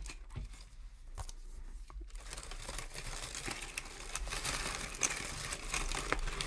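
Pink honeycomb paper packing wrap rustling and crinkling as hands pull it apart and out of a cardboard mailer box. It starts as scattered light rustles, then from about two seconds in becomes a continuous, louder crackle.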